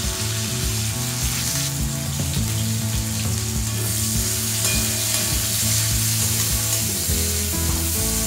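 Chopped onions and green chilli sizzling steadily in hot oil in an aluminium kadhai, stirred with a perforated metal spoon that scrapes across the pan.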